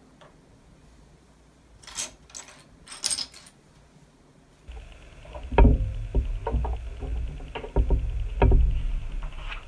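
Plastic LEGO pieces handled on a hard tabletop: a few light clicks about two to three seconds in, then from about halfway hands slide and push loose bricks across the table, a rubbing sound with many small plastic clicks and knocks.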